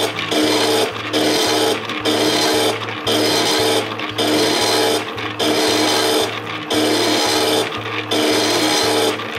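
Stepper motors of a home-built CNC pen plotter driving its axes in short moves, about one a second, each a steady buzzing whine cut by a brief pause, with the highlighter pen rubbing over the paper.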